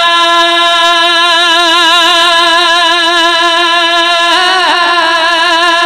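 Male naat reciter singing unaccompanied, holding one long note with vibrato.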